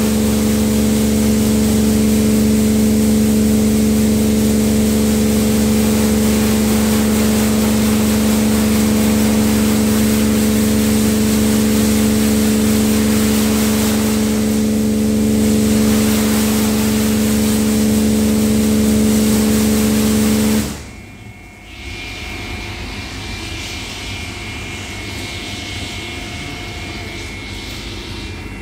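Tammermatic T700 Lux touchless car wash spraying: a loud, steady machine hum with the hiss of water jets over the car. About twenty seconds in the spraying stops suddenly, leaving a much quieter hiss with a faint high tone.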